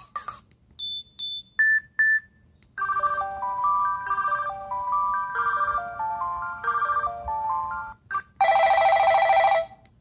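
LG Rumor cell phone's preset single tones previewing through its small speaker, one after another. A few short paired beeps come first. Then a short electronic melody repeats about four times, and near the end there is a harsh buzzing ring lasting about a second.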